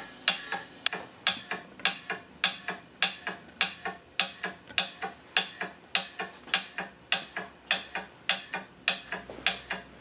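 StepX-3000 CO2 compressor and extraction machine running its recovery cycle, with a steady mechanical ticking of sharp pulses, about two a second, as the CO2 is drawn out of the system and the pressure falls.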